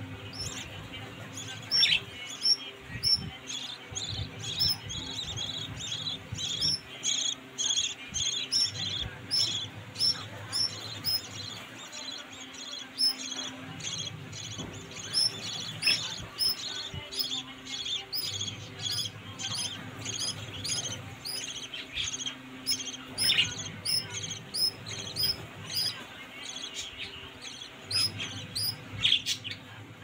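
Budgerigar chicks in the nest chirping continuously, a rapid string of short high chirps several a second.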